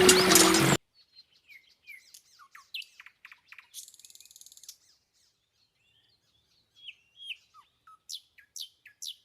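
Music cuts off abruptly less than a second in, then birds chirp and whistle in short separate calls, with a brief buzzy call near the middle. After a gap of about two seconds the chirping resumes, quicker near the end.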